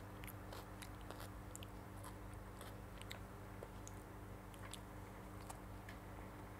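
Faint chewing and small wet mouth clicks from a child biting and eating a soft bread roll filled with chicken and mayonnaise, picked up close by a clip-on mic, over a steady low hum.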